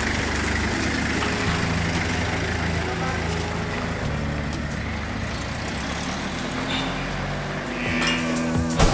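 Car engine running steadily, its pitch shifting slightly now and then.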